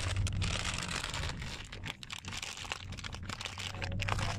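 A brown paper bag stuffed with rubbish being crumpled and squashed by hand, a run of irregular crinkling crackles, over the steady low engine hum of a coach.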